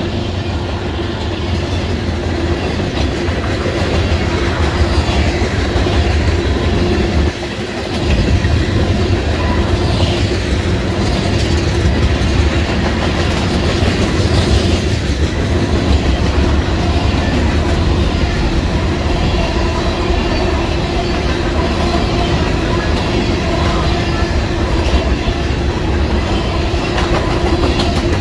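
Freight cars of a long mixed freight train rolling past: a steady rumble of steel wheels on the rails, with clicking over rail joints. The low rumble drops out for under a second about seven seconds in.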